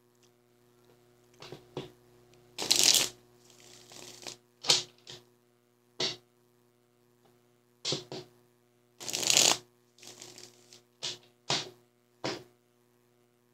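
Deck of tarot cards being shuffled in short bursts: longer runs about three and nine seconds in, between several brief snaps and flicks of the cards.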